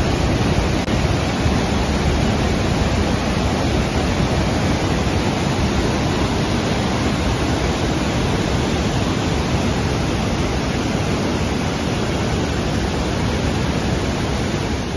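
River water rushing over rocky rapids and low falls, making a steady loud rush of white water with no break.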